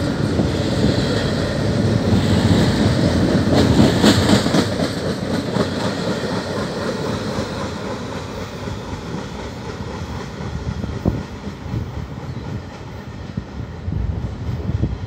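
Double-stack intermodal freight cars rolling past on steel rails, wheels clattering over the track. The noise is loudest a few seconds in, then fades steadily as the end of the train passes and moves away, with an occasional sharp click from the wheels.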